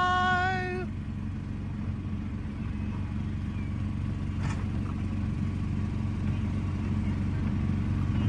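A held sung note ends about a second in. Then comes the steady low hum and rumble of an electric Autopia ride car driving along its track, with a couple of faint clicks in the middle.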